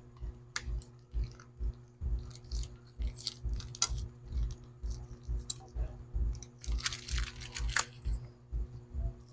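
Small clicks, taps and scrapes of tools and parts being handled on an opened smartphone, with a longer crunchy scraping about seven seconds in. A steady low hum and a regular low thump about twice a second run underneath.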